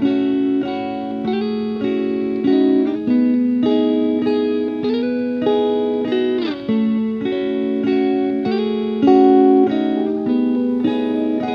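Instrumental background music: a plucked-string melody over held notes, with no singing.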